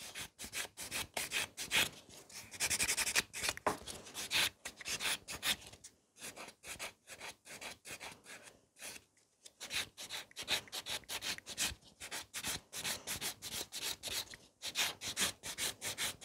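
Sponge nail buffer rubbed quickly back and forth over artificial nails around the cuticle area, a rapid run of short scratchy strokes that pauses briefly a little past the middle.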